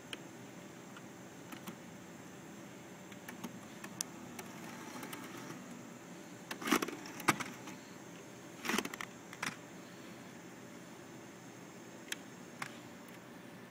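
Handling noise from a Panasonic DVCPRO AJ-LT85 laptop editor: single clicks of its buttons and two short bursts of rattling plastic knocks about halfway through, over a low steady hum.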